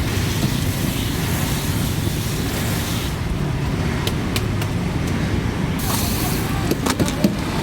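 Steady street background of road traffic: a low rumble under a hiss, with a few sharp clicks in the second half.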